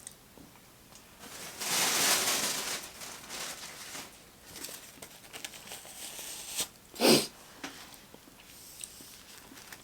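Paper or wrapper rustling and crinkling for about a second and a half, then small handling ticks and a short vocal sound about seven seconds in.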